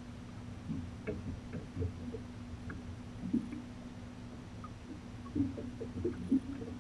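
Small waves slapping against the fiberglass hull of a skiff, a scattering of soft knocks over a steady low hum.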